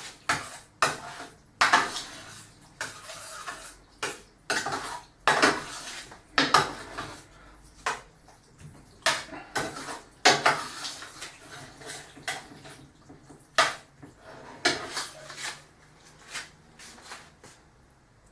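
A large serving spoon scraping and clinking against a pan as chilli is spooned out, about one knock or scrape a second, growing fainter near the end.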